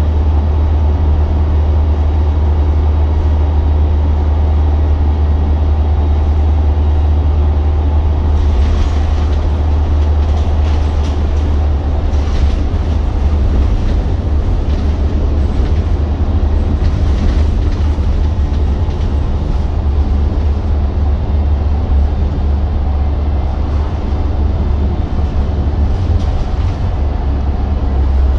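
Wrightbus GB Hawk single-deck bus on the move, heard inside the cabin from the rear seats: a steady low engine and driveline drone with road noise, even in level throughout.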